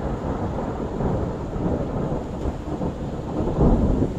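Rolling thunder from a thunderstorm, a long rumble that swells and is loudest shortly before the end.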